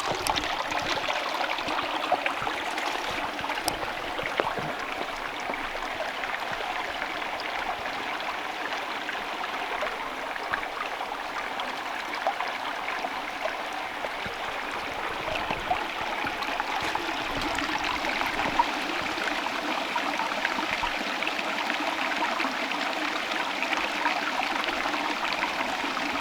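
Small mountain stream running over and under big rocks into pools, a steady trickling and splashing of water.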